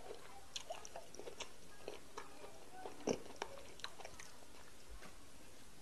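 Close-miked eating sounds of fufu and egusi soup eaten by hand: scattered wet mouth clicks and smacks from chewing, the loudest a little after three seconds in.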